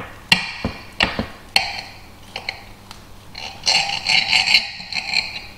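Kitchen knife cutting through a slab of baked banana bread. There are several sharp clicks in the first second and a half as the blade knocks against the surface beneath, then a stretch of scraping about three and a half seconds in as the blade is drawn through the cake.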